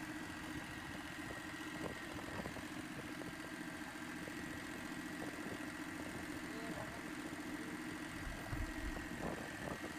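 Compact six-wheeled tractor's engine running steadily at low revs as the tractor crawls, with a few low thumps near the end.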